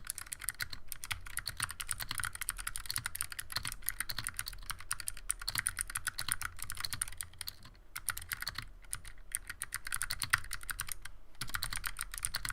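Typing on a 60% mechanical keyboard with stock, unlubed Razer Purple clicky optical switches and stock keycaps: a fast, steady run of sharp clicks, with a couple of short pauses.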